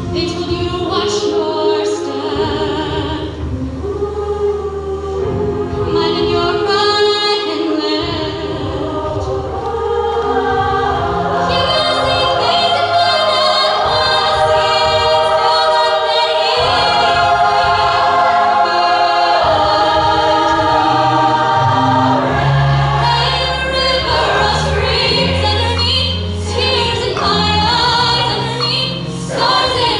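Women's show choir singing in close harmony, sustained chords moving from note to note, over a deep low backing that grows stronger about two-thirds of the way through.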